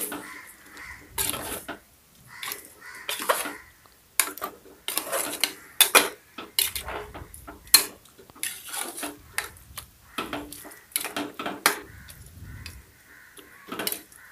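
Chicken pieces in masala being stirred in a metal pressure cooker, with irregular scraping and clattering strokes against the pot.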